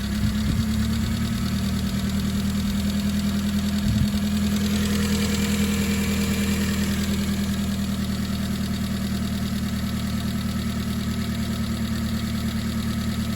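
Subaru Sambar kei truck engine idling steadily. A single sharp knock comes about four seconds in, and a hiss swells and fades a second or so later.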